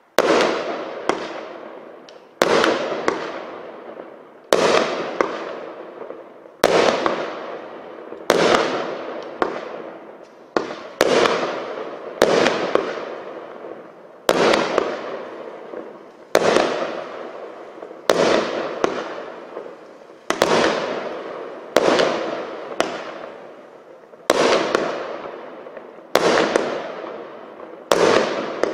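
A 42-shot brocade crown firework cake firing shot after shot: a sharp bang about every one and a half to two seconds, each trailing off over a second or two before the next.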